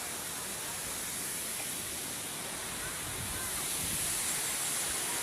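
Waterfall rushing: a steady hiss of falling water that grows slightly louder in the second half.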